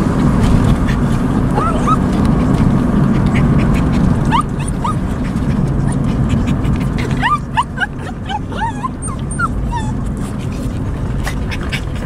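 A dog whining in short, high rising yelps, a few at first, then a quick flurry past the middle, over the steady low rumble of a moving car with its window down.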